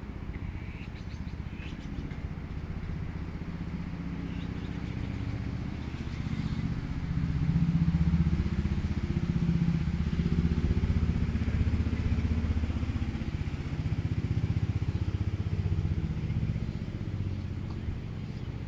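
Isuzu ELF fire truck's engine running steadily at idle with a low, uneven hum, growing louder about a third of the way in.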